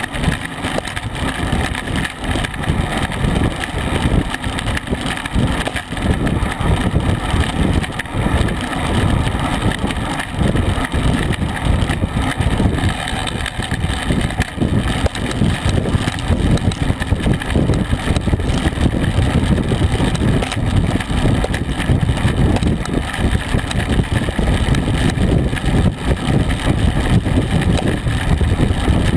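Wind buffeting the microphone of a camera mounted on a racing bicycle at about 24 mph: a loud, steady rumble that flutters rapidly, mixed with tyre and road noise.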